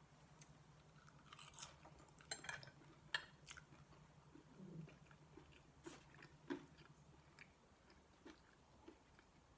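A person chewing a mouthful of chilli cheese fries close to the microphone: soft, wet mouth clicks and smacks, busiest in the first few seconds and sparser after. A faint steady low hum runs underneath.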